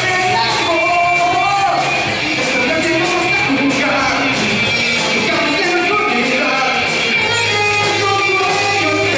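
Live rock band playing, with a man singing over electric guitar and bass.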